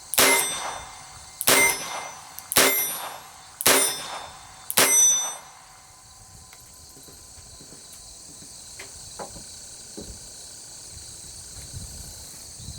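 Colt Officer's Model Match .22 Long Rifle target revolver firing five shots about a second apart, each a sharp crack with a short ringing tail. After that only faint clicks are heard.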